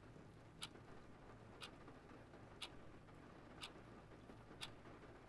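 Clock ticking evenly, once a second, in a quiet room with a faint low hum.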